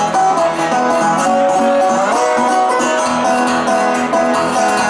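Solo guitar played live: plucked notes ringing over one another, with the pitch sliding upward about two seconds in.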